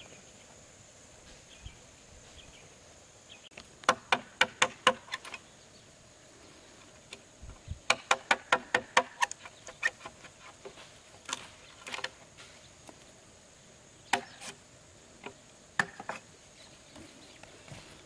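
Sharp knocks of a tool striking bamboo or wood: a quick run of about six strikes, a pause, a longer run of about ten at roughly six a second, then scattered single knocks.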